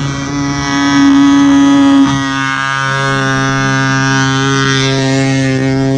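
Enya 61 two-stroke glow engine of a control line stunt plane running at full speed on the ground before launch, holding one steady pitch, a little louder for about a second near the start.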